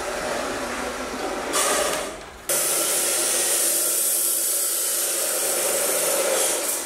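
A steady, loud hiss from the cooking stove and the pots boiling on it. It fades briefly about two seconds in, then comes back suddenly and stronger.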